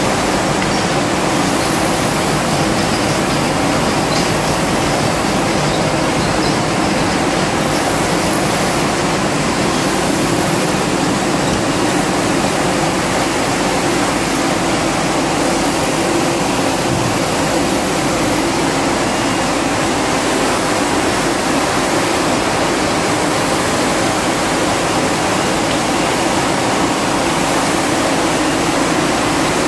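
Glass bottle frosting production line running: a steady, loud rushing machine noise with no breaks.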